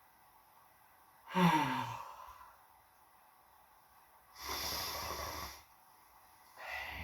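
A sleeping person snoring and breathing. About a second in comes a loud snore that falls in pitch, then a noisy breath of about a second just past the middle, and a shorter one near the end.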